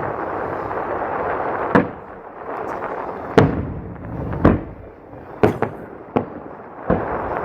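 Aerial fireworks shells bursting in a quick string of about seven sharp booms, over a steady hiss that fills the first two seconds and returns near the end.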